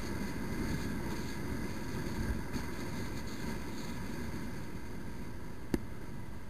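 Motorcycle riding noise from a bike-mounted camera: a steady low rumble of wind and road with the motorcycle under way, and one sharp click near the end.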